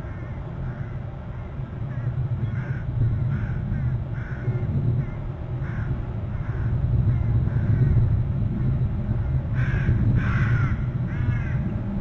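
A series of short, harsh bird calls, one or two a second, with a louder cluster of calls about ten seconds in, over a steady low rumble.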